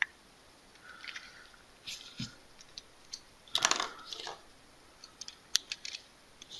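Light clicks and clatter of small hand tools being handled on a tabletop as a screwdriver bit is picked up, loudest in a short burst about three and a half seconds in.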